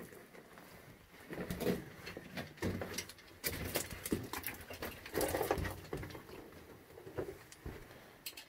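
Irregular crunching, scuffing and knocking on loose rock, like footsteps and scrambling over a rubble floor in a small mine drift, with a dozen or so sharp crunches from about a second in to near the end.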